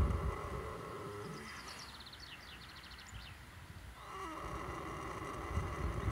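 A horse snoring: a noisy, low breath dies away in the first second, and the next one builds up over the last half-second. In the quiet gap between them, a bird trills briefly.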